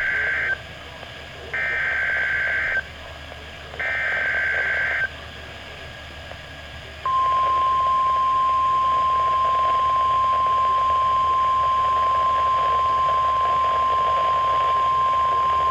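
NOAA Weather Radio Emergency Alert System activation: three short buzzy SAME header data bursts with pauses between them, the first cut short, then about seven seconds in the steady 1050 Hz warning alarm tone begins and holds. Here it announces a tornado watch.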